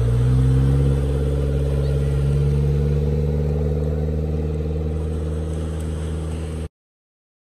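Small Suzuki 4x4's engine running as it drives off across sand, the note rising briefly, then steady and slowly fading as it moves away. The sound cuts off suddenly near the end.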